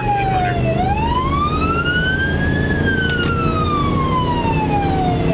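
A fire company utility truck's electronic siren in wail mode, heard from inside the cab. It slides down briefly, climbs slowly for about two seconds, glides back down for about two and a half seconds, then starts climbing again near the end, over the truck's engine and road rumble.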